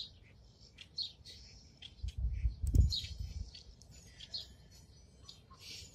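Birds chirping in short, repeated calls, with a few low thumps about two to three seconds in.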